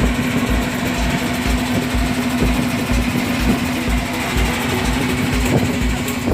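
Small fishing boat's engine running steadily, with a regular low thump about twice a second.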